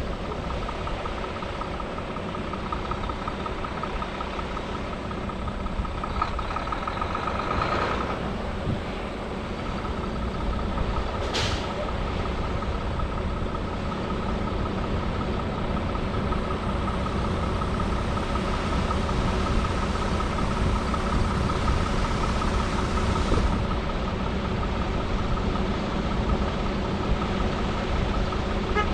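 Heavy diesel harvest machinery running steadily: a low engine drone with a steady whine on top. A brief sharp hiss comes about eleven seconds in.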